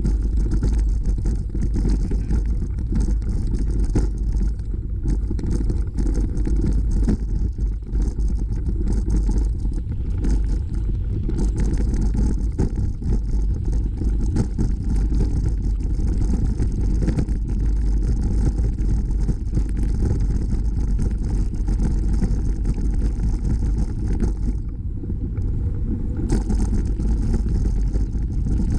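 Steady low rumble of wind buffeting a bicycle-mounted camera's microphone, mixed with tyres rolling over a dirt and gravel trail while riding.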